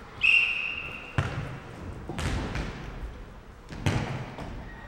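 A referee's whistle blows once, short and high, then a futnet ball is kicked back and forth and bounces on the wooden hall floor: several sharp thuds about a second apart, each ringing on briefly in the hall.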